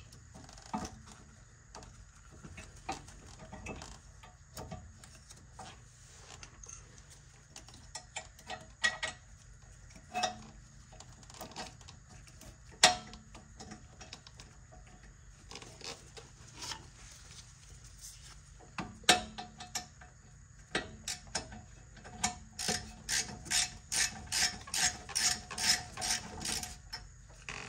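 Metal clinks and knocks from a brake caliper being refitted over new pads. Near the end, a ratchet wrench clicks in a steady run of about three clicks a second as a caliper bolt is run in.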